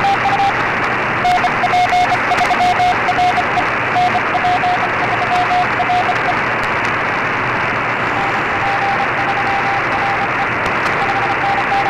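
Morse code (CW) on the 20-metre amateur band through a remote shortwave receiver in USB mode: a single steady-pitched beep keyed on and off in dots and dashes over a steady hiss of band noise. The keying stops briefly a little past the middle, then comes back weaker.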